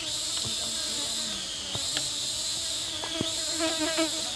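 Steady high-pitched insect chorus that dips and swells every second or so, with a few faint clicks over it.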